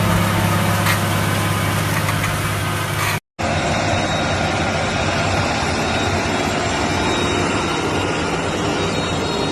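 Heavy farm machinery's diesel engine running steadily with a low drone; about three seconds in the sound cuts off abruptly and switches to a different, noisier machine running.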